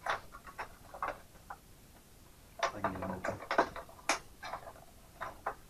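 Cardboard Funko Pop box and its plastic insert being opened and handled: scattered light clicks and crinkles, busiest around the middle.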